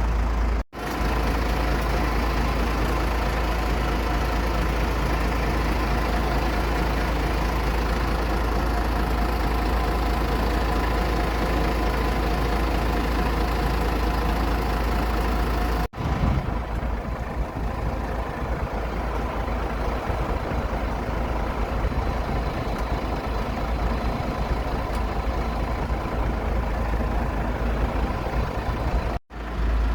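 Aircraft engine running steadily on the ground, a continuous hum with several held tones over a heavy low rumble. It drops out for an instant about a second in, again about halfway, and once more near the end.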